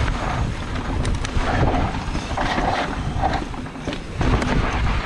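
Mountain bike rolling fast down a loose dirt trail: wind rumbling on the microphone, with tyres crunching over dirt and rocks and frequent rattles and clicks from the bike.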